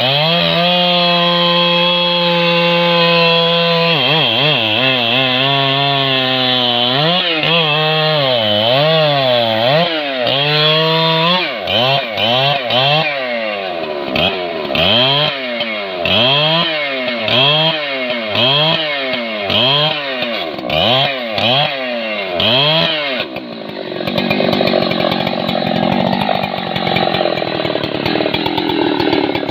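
Large two-stroke chainsaw cutting through a thick hardwood log. It runs at steady high revs at first, then its engine note swings up and down over and over, about once a second, and near the end it settles into a rougher, steadier sound.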